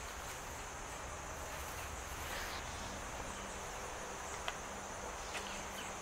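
Steady high-pitched insect chirring in outdoor background ambience, with a few faint ticks.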